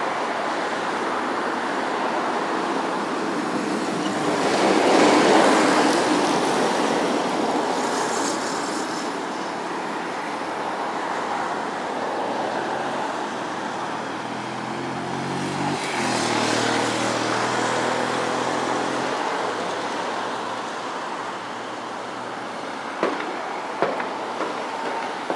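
Steady urban road traffic, with vehicles passing. One swells loudest about five seconds in, and an engine note drops and then holds near the middle. Sharp clicks begin near the end.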